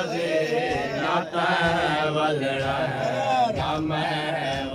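A group of men chanting a noha, a Shia mourning lament, in a steady melodic recitation. A few sharp hits cut through the singing.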